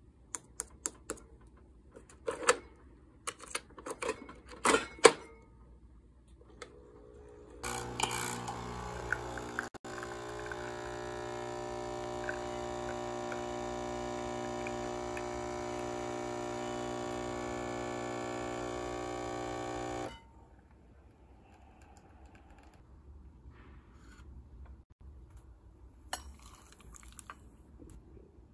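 A few sharp clicks and knocks, then a steady machine hum for about twelve seconds that stops suddenly.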